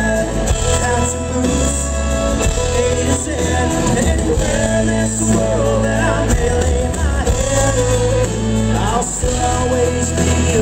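Live country band playing loud: fiddle, acoustic and electric guitars, bass guitar and drums, with singing over them.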